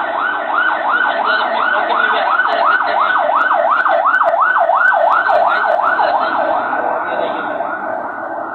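Electronic siren in a fast yelp, its pitch sweeping up and down about three times a second. It grows louder to a peak midway, then fades.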